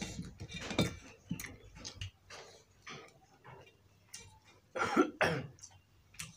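Close-up eating sounds of rice and fish curry eaten by hand: wet mouth smacks, chewing and fingers working rice on a steel plate, with a louder burst about five seconds in.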